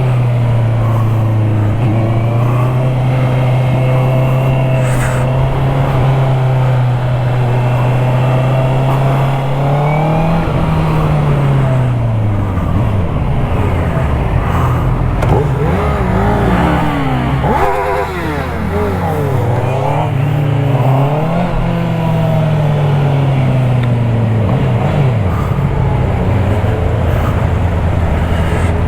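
Honda CBR650R's inline-four engine under way: it holds a steady note for several seconds, then rises and falls in pitch several times as the rider accelerates and shifts gears, and settles to a lower steady note near the end.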